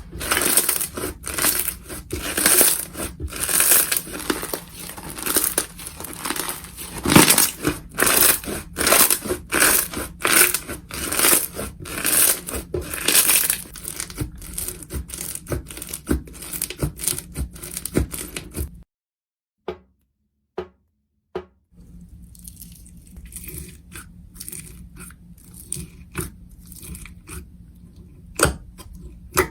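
Slime being handled, making a dense run of crackling, crunching pops. These break off into about three seconds of silence two-thirds of the way through, then resume sparser and quieter.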